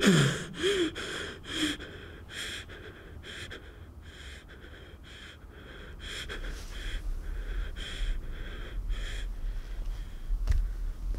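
A person breathing heavily in quick, noisy breaths, with a few short falling groans or gasps at the start. A single sharp knock comes a little before the end.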